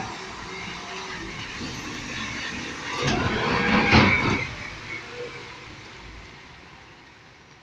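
Garbage truck driving past on a wet street: engine and tyre noise on the wet pavement grow loudest about three to four seconds in as it passes close, with a couple of knocks, then fade away steadily.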